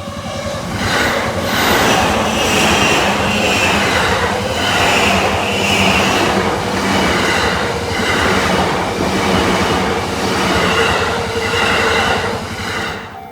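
JR Yamanote Line electric commuter train passing close by over a level crossing: a loud, steady rush of wheels on rail with a clatter about once a second. The level-crossing warning bell is heard ringing at the start, and the train noise drops away sharply near the end.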